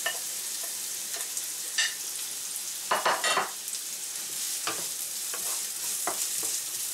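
Diced onion and julienned carrot sizzling in sunflower oil in a hot non-stick frying pan, stirred and scraped with a wooden spatula. A burst of louder scraping comes about three seconds in.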